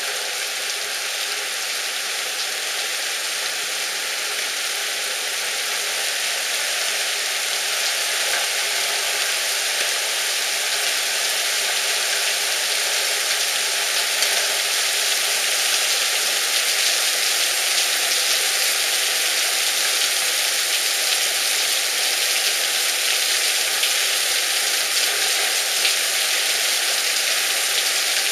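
Heavy rain pouring down, a dense steady hiss with fine ticks of individual drops, growing a little louder over the first several seconds.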